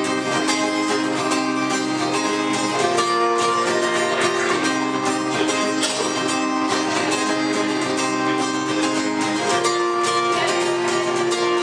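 Acoustic guitar strummed, with no singing: steady chords that change every couple of seconds.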